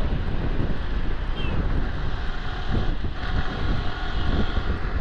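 Wind buffeting the microphone over a Yamaha R15 V3's single-cylinder engine running at cruising speed. From about three seconds in, the engine's steady note comes through more clearly.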